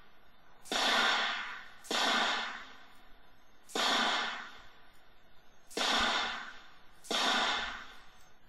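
FG-42 automatic rifle (7.92×57mm Mauser) fired from its bipod in the prone position, single shots. Five shots come at uneven gaps of one to two seconds, and each report trails off over most of a second.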